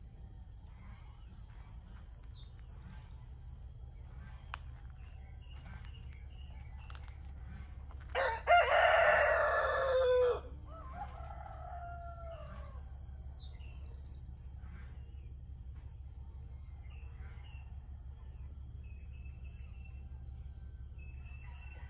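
A rooster crows once, loud and close, about eight seconds in, the crow lasting about two seconds; a fainter crow follows right after it. Small birds give a few short falling whistles over a steady low background rumble.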